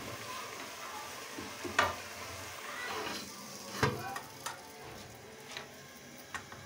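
Curry simmering in an aluminium pot, with two sharp metal clanks about two and four seconds in as the aluminium lid is handled and set on the pot, followed by a few lighter taps.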